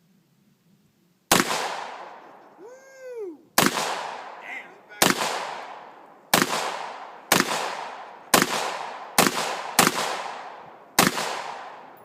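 AR-15 firing 5.56 mm (.223) rounds: nine sharp, loud shots at an uneven pace of roughly one a second, each followed by a long echoing decay. A brief rising-then-falling whine follows the first shot.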